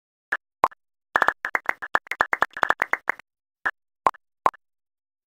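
A string of short pops from an animated intro sound effect, set against silence. Two single pops come first, then a quick flurry of about twenty over two seconds, then three more spaced well apart.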